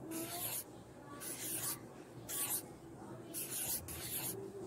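Short hissing puffs of breath close to the microphone, about one a second.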